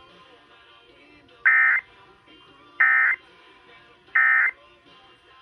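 Emergency Alert System end-of-message (EOM) data bursts: three short, loud digital squawks about 1.4 s apart, the modem tones that close the alert.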